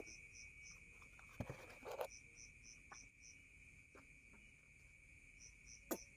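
Faint crickets chirping in short runs of several chirps a few times a second, with pauses between runs, over a steady high whine. A few soft clicks come through, two of them close together about a second and a half in.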